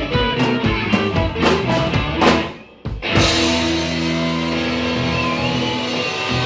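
Rock band music: drum hits with guitar, a short break a little over two seconds in, then long held chords.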